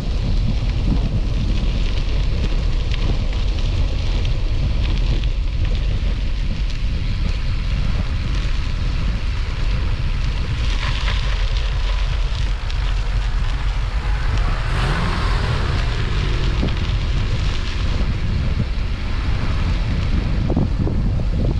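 Wind buffeting an action camera's microphone while travelling down a road, a steady low rumble with the noise of the moving vehicle underneath.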